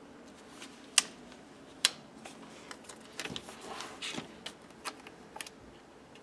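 A paper sticker being handled by hand on a notebook page: two sharp ticks a little under a second apart near the start, then a run of lighter ticks and soft paper rustling as the sticker is peeled and pressed down.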